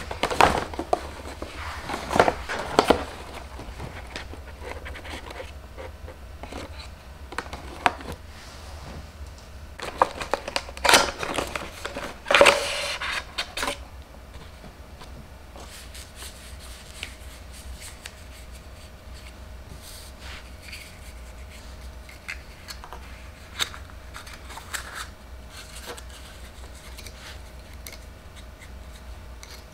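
Paper and gift packaging rustling and crinkling as it is handled on a table. There are louder bursts in the first few seconds and again about ten to thirteen seconds in, then lighter scattered rustles and small taps.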